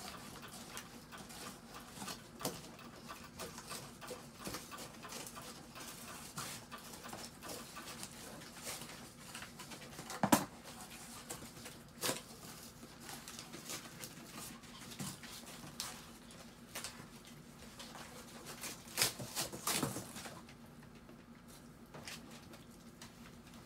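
Chihuahuas' paws and claws pattering and scuffing on a plastic tray and a tarp-covered floor: irregular light taps throughout, with a few louder knocks about ten and twelve seconds in and again near twenty seconds.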